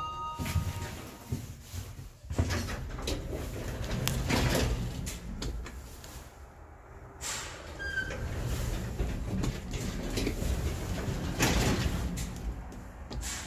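Automatic sliding doors of a 1992 Hyundai 60VF elevator working, with several clunks and knocks from the door gear over a steady low hum. The arrival chime fades out at the start, and a short high beep sounds about eight seconds in.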